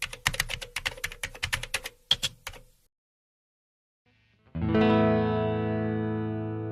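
A quick run of sharp clicks, then a second or so of dead silence. After that, a chord on a Clifton Thinline electric guitar with Wilkinson P90 pickups, played through effects and some distortion, rings out loud and slowly fades.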